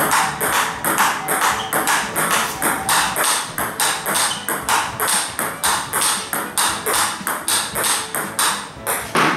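Table tennis rally: a plastic ball struck by a racket faced with thick Nittaku Fastarc G1 rubber and bouncing on the table, a quick, regular run of sharp pocks, several each second.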